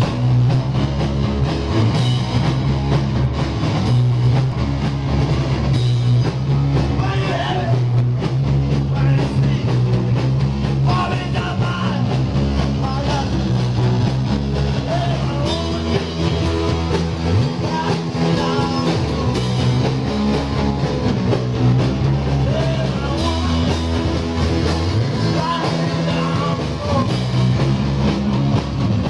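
Live rock band playing at a steady loud level: two distorted electric guitars, an electric bass and a drum kit.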